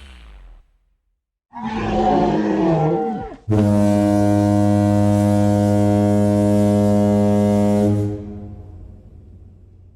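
Stock editing-software sound effects: a short growling roar with a falling pitch, then a long, low, steady horn blast held for about four and a half seconds before it fades away.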